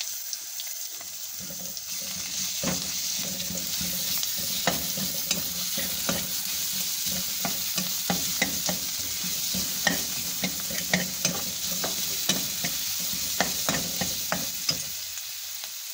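Sliced onions and ginger-garlic paste sizzling in butter in a pan, stirred with a slotted spatula that clicks and scrapes against the pan many times from a couple of seconds in.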